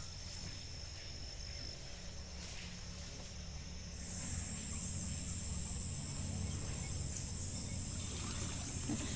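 Insects trilling steadily, a thin high-pitched tone that jumps to a higher pitch about four seconds in, over a low rumble.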